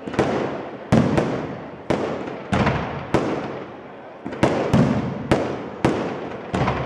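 Aerial firework shells bursting overhead: about a dozen sharp bangs in quick, uneven succession, each trailing off in an echo.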